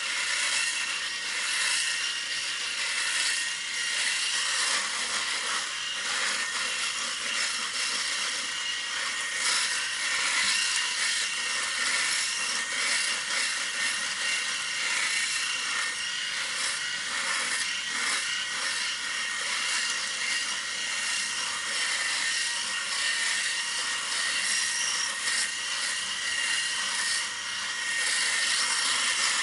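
Electric shaver running while shaving: a steady high-pitched buzzing rasp that swells and dips a little in loudness.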